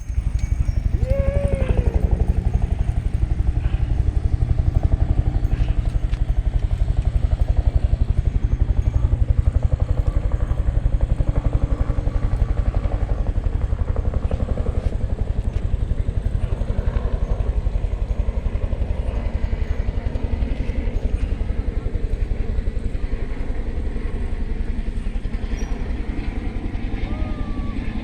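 Off-road motorcycle engine running steadily, a dense, rapid low pulsing throughout, with a brief rising-and-falling whine about a second in and again near the end.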